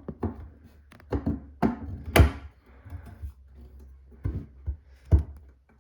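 Irregular knocks and taps from the animatronic's parts being handled and fitted together, about seven in all, the loudest a little over two seconds in.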